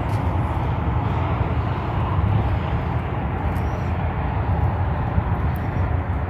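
Steady low rumble of wind buffeting the phone's microphone outdoors, with a few faint ticks.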